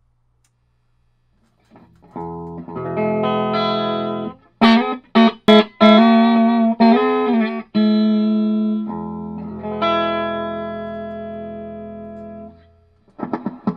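Electric guitar played through a Reverend Kingsnake 2060 tube combo amp, demonstrating its repaired reverb. It starts about two seconds in with a few ringing chords, then some short choppy stabs and more chords, then one long chord left to ring and slowly fade before more playing starts near the end.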